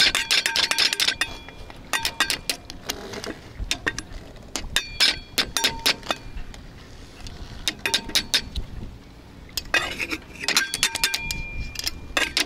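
Metallic clicking and clinking in scattered bursts, some clicks ringing briefly: pliers and a steel C-clip (circlip) scraping and snapping against the jib roller-furler fitting as the clip is worked into its groove.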